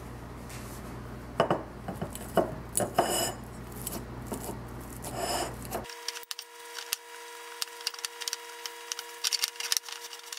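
A metal fork mashing peeled bananas in a glass mixing bowl, its tines clicking and scraping against the glass. The clicks come only now and then at first, and in quick, dense runs from about six seconds in.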